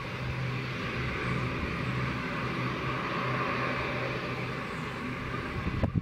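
ATR turboprop airliner's engines and propellers running at low power as it taxis: a steady drone with a low hum underneath. A short thump near the end.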